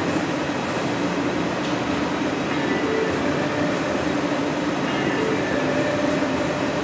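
Steady loud rushing noise of a glassblowing hot shop: gas-fired glory holes and furnace burners running with their blowers and exhaust fans, with a faint hum of a few steady tones over it.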